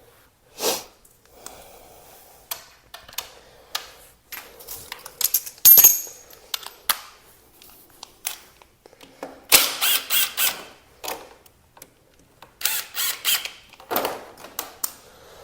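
Irregular clicks, knocks and rattles of hand tools and plastic motorcycle fairing panels being handled as the fairings are taken off, with a denser clatter about ten seconds in.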